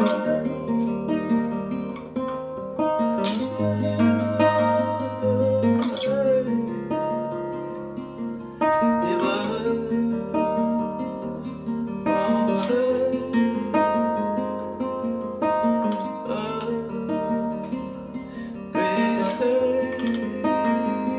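Nylon-string classical guitar with a capo, fingerpicked in a steady arpeggio pattern, the chord changing every few seconds.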